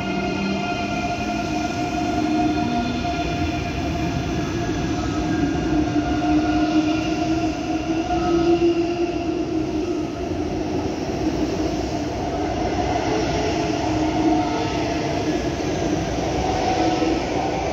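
ICE 3 high-speed electric train rolling slowly alongside the platform as it pulls in, with a continuous rumble and several steady whining tones from its electric drive and wheels, echoing in the enclosed station hall.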